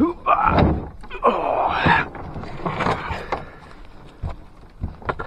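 Plastic Sun Dolphin kayak being hauled from shallow water onto a muddy bank. The hull scrapes and squeaks through the first two seconds, then gives a few light knocks as it is handled.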